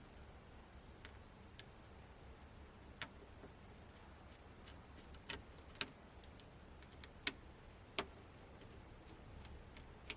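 Scattered small clicks and taps, about half a dozen, over a faint low hum: precision tools and small parts being handled during the disassembly of a tablet.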